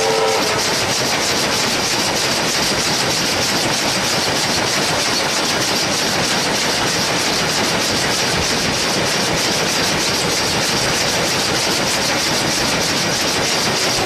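A steam locomotive's whistle cuts off about half a second in. After that comes the steady rushing noise of a steam train running at speed, with a fast, even rattle of wheels on rail.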